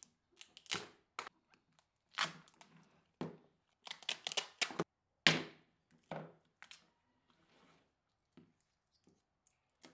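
Irregular knocks, cracks and short tearing scrapes as the sides of a tape-lined melamine form are pried off and a cured epoxy-filled oak board is worked loose and lifted out of it.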